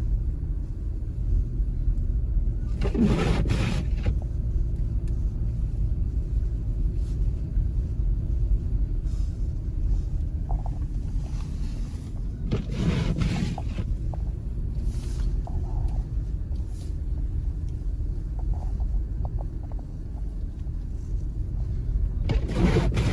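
Steady low rumble of a car driving slowly through deep, unplowed snow, heard from inside the cabin. Three brief louder rushes of noise come about three seconds in, again around thirteen seconds, and near the end.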